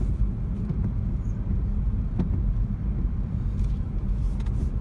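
Steady low rumble of road and engine noise inside the cabin of a moving Ford Focus, with a few faint ticks.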